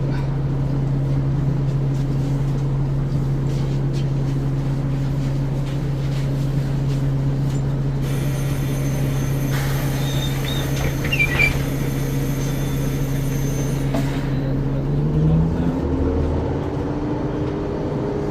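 Ikarus 435 articulated bus's diesel engine idling steadily, then speeding up with a rising pitch about fifteen seconds in as the bus pulls away. Faint high thin tones and a few short squeaks sound over the idle in the middle.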